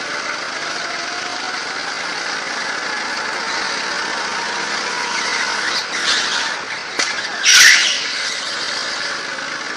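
Go-kart engine running at speed under steady noise, with two short tyre screeches through the corners, about six and seven and a half seconds in, the second one the loudest.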